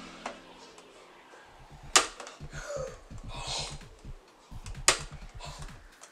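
Pie Face game's plastic handle being turned one click at a time: separate sharp plastic clicks, a faint one at the start and two loud ones about two and five seconds in, each time with the spring-loaded hand holding back. A brief soft voice sound falls between the second and third click.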